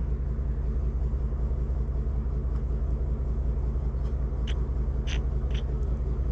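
Steady low rumble with a fast, even pulse, like an idling engine, and three short high ticks a little past the middle.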